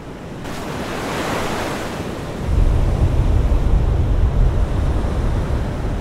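Ocean surf breaking on a rocky shore, fading in as a hiss of washing foam. About two and a half seconds in, a deep low rumble joins it: wind buffeting the microphone.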